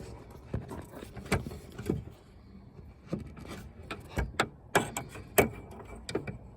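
Irregular clicks and taps of a screwdriver tip being worked up against the metal latch tab inside a Ford Bronco II rear gate, with a few louder knocks in the second half.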